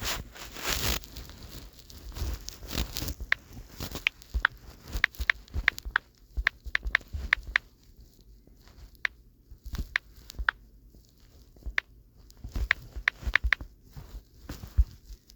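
Fingers typing on a phone's touchscreen keyboard: quick, irregular taps and clicks, several a second, with a short pause partway through. A brief rustle of the phone being handled comes at the start.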